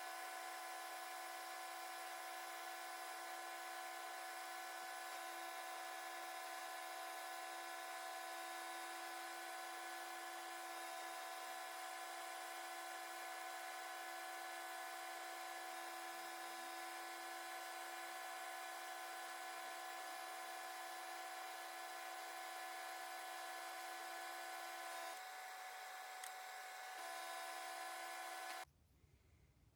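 Kitchen cooker-hood extractor fan running with a steady hum while a Harder & Steenbeck Ultra 2-in-1 airbrush sprays with a hiss. A low tone in the hum stops about 25 seconds in, and the sound cuts out briefly near the end.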